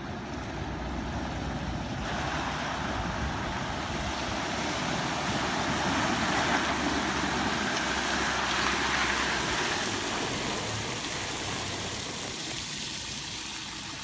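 Water rushing and splashing as a Ford Ranger PX2 ute drives through a shallow flowing river and out onto the bank, with the vehicle's engine running underneath. The rush builds to its loudest around the middle, then eases off.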